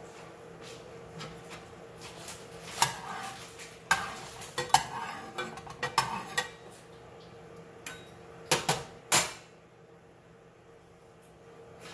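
Metal kitchen utensils clinking and scraping against dishes and pans in an irregular run of strokes, then two sharp, louder clacks later on.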